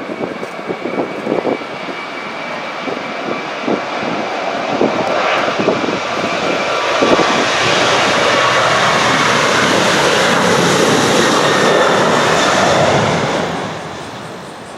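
Boeing 737-800's CFM56 jet engines at takeoff power, the roar building up to a loud, steady peak and then falling away near the end. Gusty wind buffets the microphone with low thumps in the first few seconds.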